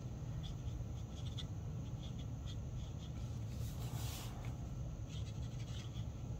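Felt-tip marker scratching and ticking lightly on cardstock while colouring, over a steady low hum. About four seconds in, a brief rustle as the card is shifted on the table.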